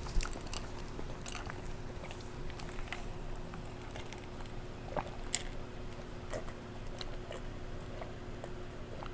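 Close-miked chewing of a mouthful of chicken alfredo, with scattered soft wet mouth clicks and one sharper click about five seconds in.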